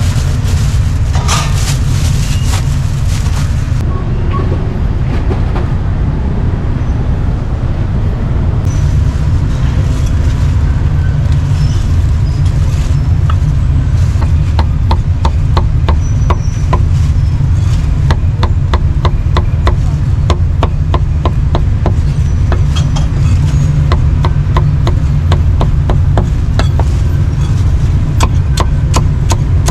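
Heavy cleaver chopping roast pork on a round wooden chopping block: from about halfway in, runs of quick, sharp strikes. Beneath them runs a steady low rumble of passing street traffic.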